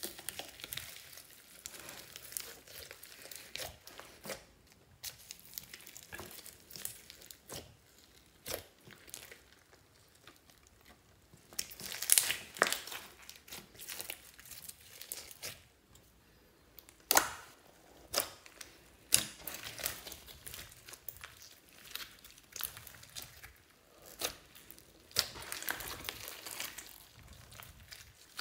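Hands squishing, stretching and kneading clear slime mixed with foam beads and glitter: irregular sticky crackling and tearing sounds, with a few louder crackles around the middle.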